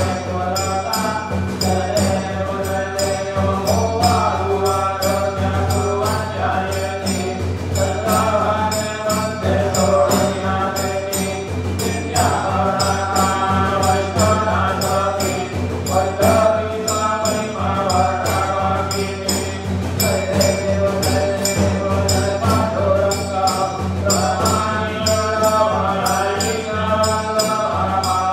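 Hindu aarti to Ganesh sung in chant-like phrases over a steady low drone, with a quick, even beat of ringing bells.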